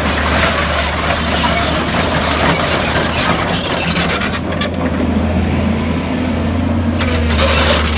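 Volvo crawler excavator's diesel engine running with a steady low drone under a rattling, hissing noise. The hiss drops away for about two and a half seconds past the middle, with a few clicks as it stops and starts again.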